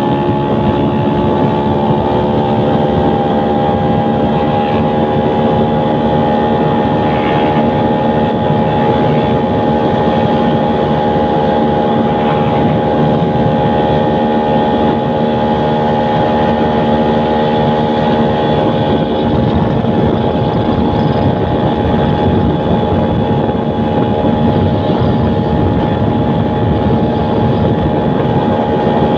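Tuned small four-stroke single-cylinder motorcycle engine, fitted with a 56 mm piston, a stage-1 cam and a racing ECU, running hard at high revs. Its note climbs a little over the first few seconds, then holds steady.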